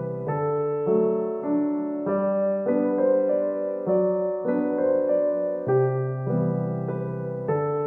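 Background piano music: a gentle melody of single sustained notes, changing about every half second.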